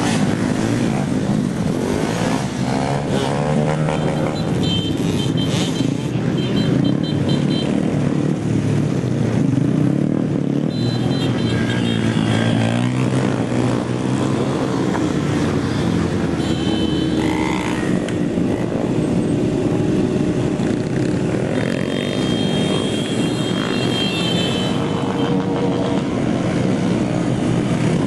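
Several small single-cylinder motorcycles, Honda Groms and pit bikes, running and revving together as they ride past, their engine notes rising and falling and overlapping.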